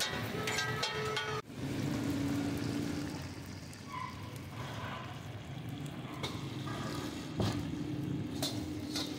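A short musical sting that cuts off abruptly about a second and a half in. Then comes the steady background noise of a busy street-food stall, with a low hum and a few sharp metallic clinks.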